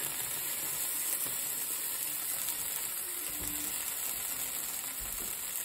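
Slices of queso fresco frying in a dry pan with no oil, a steady sizzle.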